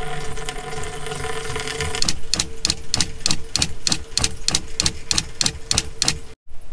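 An RV's SHURflo 12-volt diaphragm water pump with a faucet open only partway: water runs steadily for about two seconds, then the pump chugs in rapid even pulses, about four a second, and stops abruptly near the end. This pulsing is the pump cycling because the faucet is not fully open and there is no accumulator tank on the pump's outlet.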